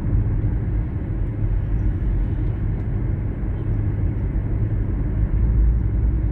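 Steady low rumble of a moving vehicle: engine and road noise heard while travelling along the road.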